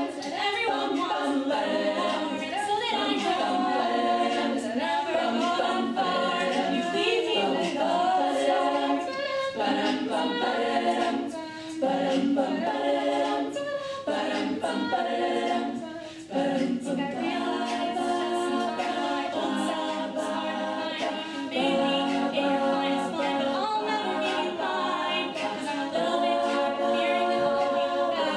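Women's a cappella group singing live: a solo voice over layered backing voices, with no instruments. The singing drops out briefly twice, about 11 and 16 seconds in.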